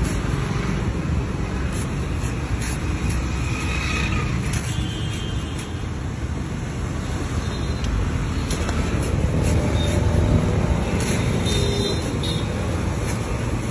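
Steady road traffic rumble, with a few faint sharp cuts of a knife trimming the husk of a green coconut.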